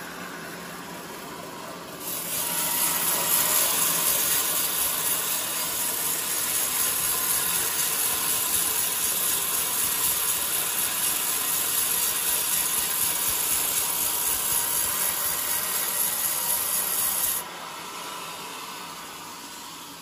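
Sawmill band saw cutting lengthwise through a coconut log: a loud, steady hissing rasp starts about two seconds in and cuts off sharply near the end, leaving the saw running more quietly.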